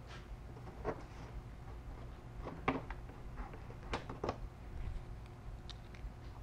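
Plastic push-type retainer clips on a 2018 Toyota 4Runner's radiator cover clicking as their centre pins are pressed and the clips pulled out by hand: a handful of short, sharp clicks a second or so apart, over a low steady hum.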